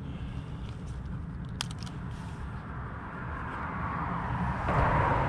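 A steady low outdoor rumble, with a vehicle's tyre noise swelling near the end as it passes; a single sharp click about a second and a half in.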